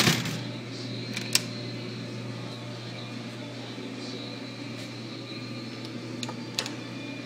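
Steady low machine hum of a small room, with a loud knock right at the start and a few sharp clicks, the loudest about a second and a half in and another near the end.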